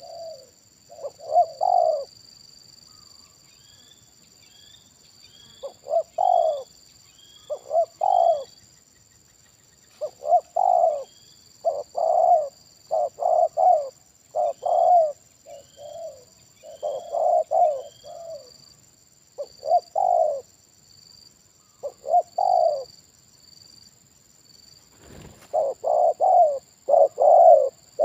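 Spotted doves cooing: short low coo phrases repeated over and over in clusters with pauses between, coming nearly without break near the end. Faint high chirps from another small bird run underneath, and there is a single sharp knock shortly before the end.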